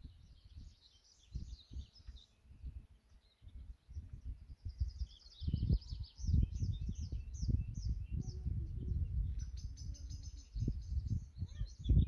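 Several songbirds singing in spring, with high chirps and quick trilled phrases, strongest about halfway through and again near the end. Irregular low gusts of wind rumble on the microphone beneath them and are the loudest sound from about the middle on.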